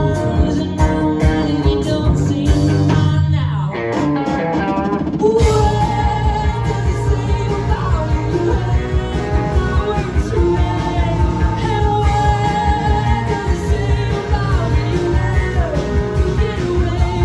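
Live rock band: a woman singing over electric guitar, bass, drums and keyboards with a steady beat. About three and a half seconds in the band drops out briefly with a falling swoop, then comes back in full about five seconds in.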